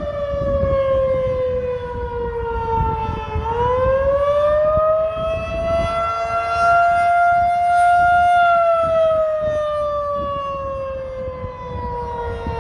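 Federal Signal 2001-SRN outdoor warning siren sounding the attack signal, a loud wail. Its pitch falls for about three seconds, rises for about five, levels briefly, then falls again toward the end.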